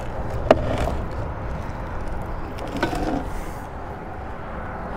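Handling noise in a small fishing boat: a sharp click about half a second in and a softer knock near three seconds, over a steady low rumble.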